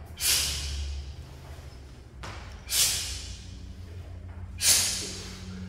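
Three sharp, forceful exhalations from a martial artist performing a form, about two seconds apart, each a hissing breath out that starts suddenly and fades over about half a second.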